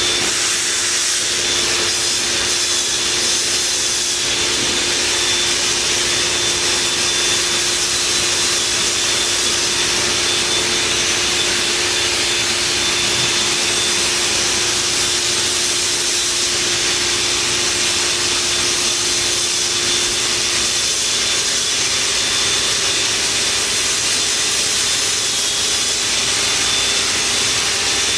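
Multicam 3000 Series CNC router running and cutting: a steady machining noise with a high hiss and a constant hum, one part of which drops away about three-quarters of the way through.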